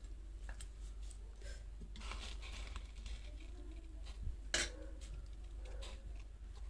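Fried tilapia being set down on masala gravy on a banana leaf lining a cooking pot: soft rustling and small clicks of handling, with one sharp clink about four and a half seconds in. A low steady hum runs underneath.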